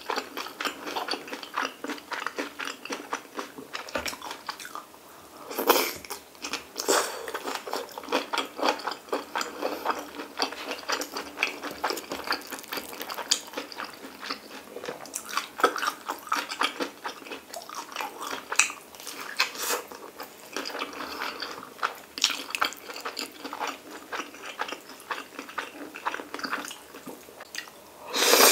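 Close-miked chewing and biting of stir-fried kimchi, pork belly and seaweed rice balls: a dense run of small mouth clicks, with a few louder bursts, the loudest about six seconds in and at the very end.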